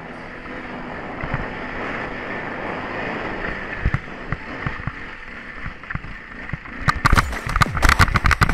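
KTM 530 enduro bike's single-cylinder four-stroke engine running on a rocky forest trail, heard through the wind rushing over a helmet camera, with knocks from the bike jolting over rough ground. About seven seconds in, a run of loud, sharp bangs crowds in.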